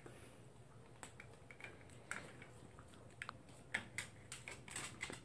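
Toy poodle gnawing a hard dental chew: faint, irregular clicks and crunches of teeth on the chew.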